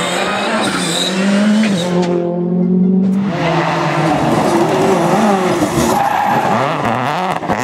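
Rally car engine under hard acceleration, its pitch climbing and dropping through gear changes and lifts of the throttle. About two seconds in it holds one duller pitch for about a second before revving hard again.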